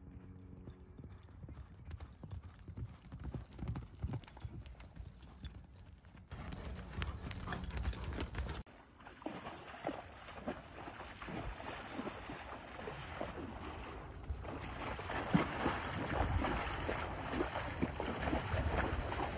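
Horse hoofbeats on dirt. From about nine seconds in, horses wade through a shallow pond, their hooves splashing and churning the water.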